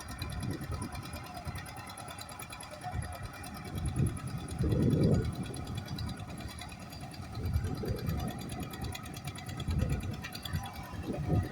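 Engine running steadily, with a few louder low surges, the strongest about five seconds in.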